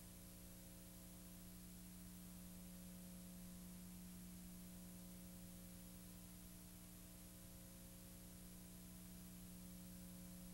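Near silence: a steady low hum with faint hiss, unchanging throughout.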